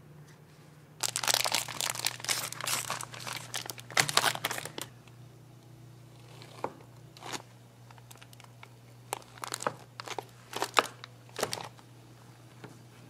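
Crinkly wrapping material being handled: a dense crinkling burst for about four seconds, then scattered crackles, over a faint steady low hum.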